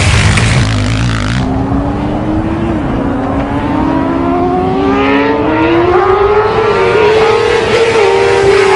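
An engine revving up, its pitch rising slowly and steadily over several seconds, after a loud rushing noise in the first second and a half.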